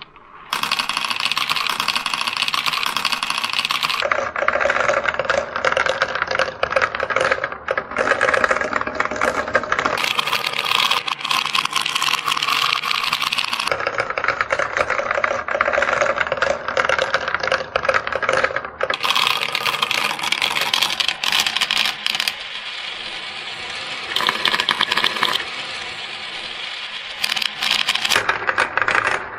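Many marbles rolling and clattering down a plastic marble run: a continuous rolling rattle full of small clicks as they knock against each other and the plastic chutes, tubes and spiral bowls, the texture changing every few seconds as they move from one part of the track to the next.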